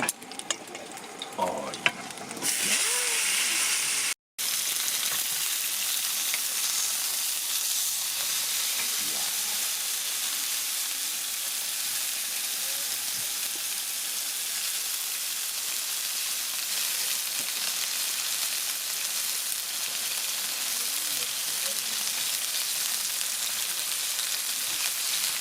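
Meat sizzling on a hot grill, a steady hiss that comes up about two seconds in and briefly cuts out about four seconds in.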